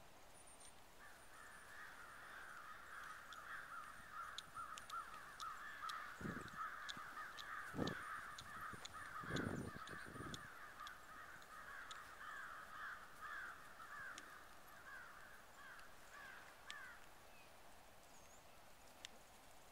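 A flock of birds calling at once: a continuous chatter of many short overlapping calls that fades out near the end. A few dull thumps sound around the middle.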